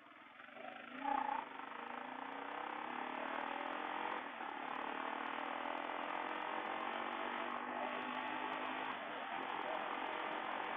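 Motorcycle fitted with a new aftermarket exhaust pulling away, the engine note rising over the first few seconds. It then settles into a steady run.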